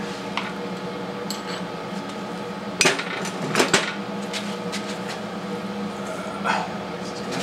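Metal clinks and clanks of a locking C-clamp being released and repositioned on a freshly tack-welded steel engine-mount bracket: a few light clicks, then louder clanks about three seconds in. A steady hum runs underneath.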